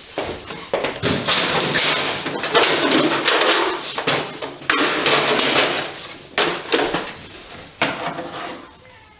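Clattering and scraping as hard objects are handled, in several rough bursts with sharp knocks between them.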